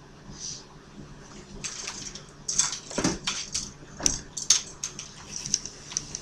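Plastic IV bag and tubing being handled and hung on an IV pole: irregular crinkling and sharp clicks, loudest in the middle seconds, over a faint steady hum.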